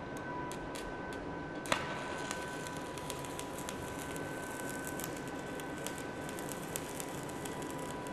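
Stick-welding arc from a NastyCast cast-iron electrode, struck with a few sharp snaps, the loudest just under two seconds in, then crackling steadily as it welds through motor oil and axle grease packed into the groove of a cast iron rotor.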